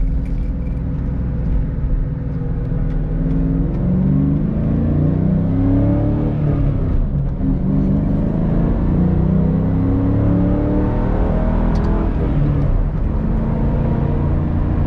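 1998 Mustang SVT Cobra's 4.6-litre DOHC V8 pulling under acceleration, heard from inside the cabin: the revs climb, drop sharply about seven seconds in at a gear change, climb again, then level off about twelve seconds in.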